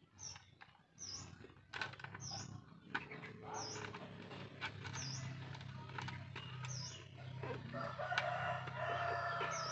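Hands pressing and handling the padded liner inside a plastic motorcycle helmet, with scattered clicks and rustles. Behind it a bird gives a short high chirp every second or two.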